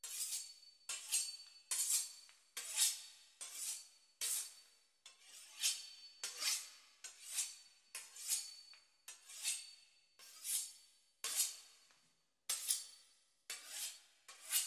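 A knife sawing back and forth through the crisp pastry crust of a beef Wellington, a steady run of short rasping strokes at about one and a half a second.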